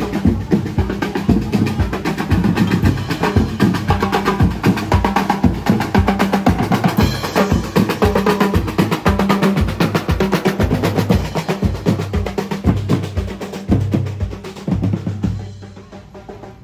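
Drums playing a fast, steady rhythm: snare drum rolls over a pounding bass drum. It gets somewhat quieter near the end.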